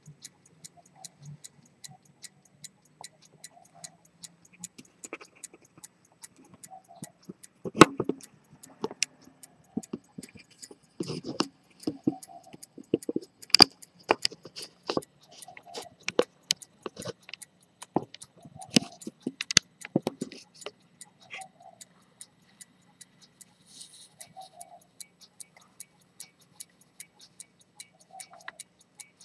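Dent pivoted-detent chronometer pocket watch ticking, a fast, even run of light ticks. Through the middle stretch, louder irregular clicks and knocks break in over the ticking.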